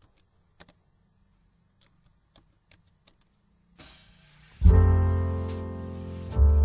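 A few faint clicks of computer-keyboard typing, then loud background music starts about four and a half seconds in: sustained piano or electric-keyboard chords over a deep bass, with a new chord struck near the end.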